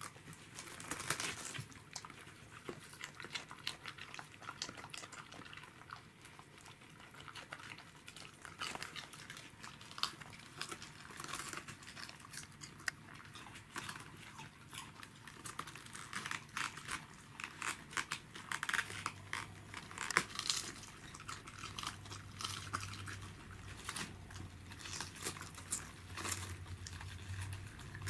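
Pembroke Welsh corgi biting and chewing raw cabbage leaves off a whole head: irregular crisp crunching and crackling of the leaves tearing. A low steady hum joins in about two-thirds of the way through.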